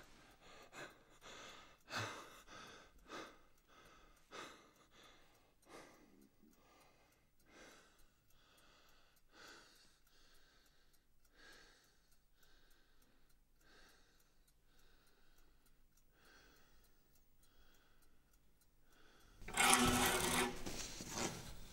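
Quiet room with faint, scattered rustles and a soft sound repeating about once a second; near the end, a louder rushing noise lasting about two seconds.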